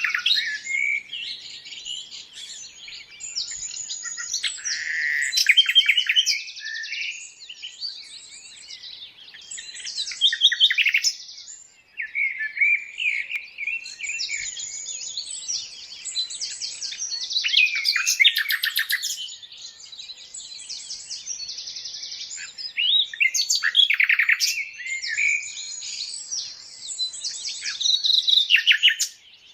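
Several birds chirping and singing at once, with high, rapid trills and short calls overlapping, swelling in loud spells and easing between them.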